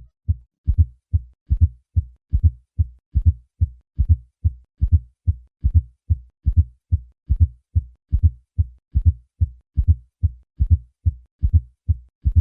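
Heart sounds heard through a stethoscope: low-pitched thuds repeating steadily in a triple rhythm, an atrial (S4) gallop, with a fourth heart sound just before each first heart sound. This extra sound is the sign of a stiff, non-compliant left ventricle, often from hypertrophy.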